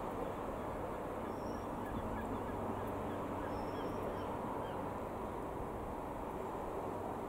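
Jabiru UL-450 light aircraft's four-cylinder air-cooled piston engine droning steadily overhead as the plane flies past.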